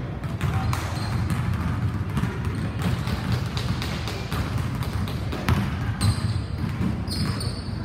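Basketball bouncing and thudding on a hardwood gym floor during a dribbling and passing drill, irregular impacts echoing in the hall over a steady low hum. A couple of short high squeaks come near the end.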